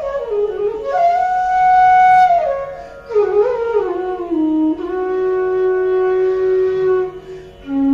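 Bansuri (bamboo flute) playing a slow melody of long held notes joined by smooth slides, ending on a low note held for about two seconds.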